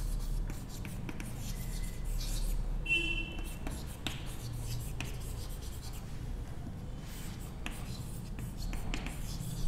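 Chalk writing on a chalkboard: scratchy strokes and light taps as words and an arrow are chalked, over a low steady hum.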